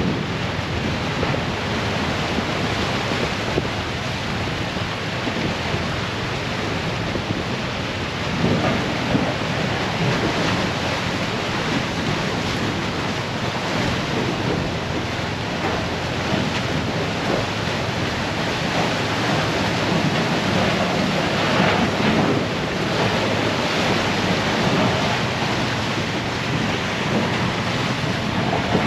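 Drift ice crunching and scraping against the hull of the Garinko icebreaker as it pushes through pack ice: a continuous rumbling, crackling noise that swells a little about eight seconds in and again past twenty seconds. Under it runs a steady low hum of the ship under way.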